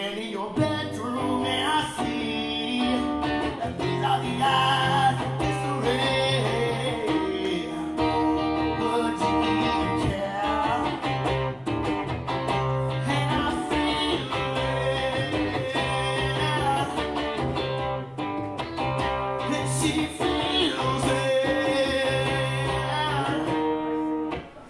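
Music: guitar with singing over a steady low bass line.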